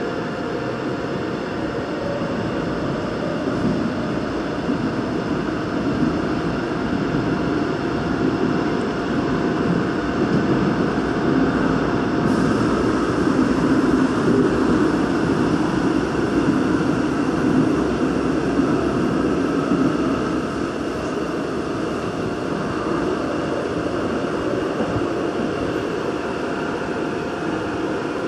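Daegu Metro Line 2 subway train running through a tunnel, heard from inside the car: a steady rumble of wheels on rail that swells in the middle and eases again. A thin steady whine stops about halfway through.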